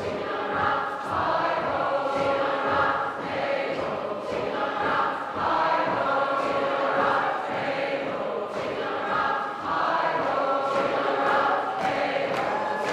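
Community choir singing a sea shanty together in phrases, their voices ringing in a large church.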